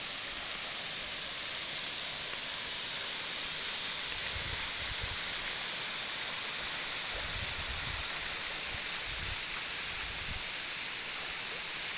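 Steady rushing of a tall waterfall plunging down a cliff onto rock and into a pool, with a few brief low rumbles about four seconds in and again later.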